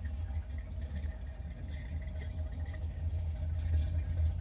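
1981 Corvette's V8 engine running with a steady low rumble.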